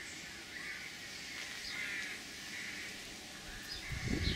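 Birds calling repeatedly in the background, short calls several times over, with a low rumble coming in near the end.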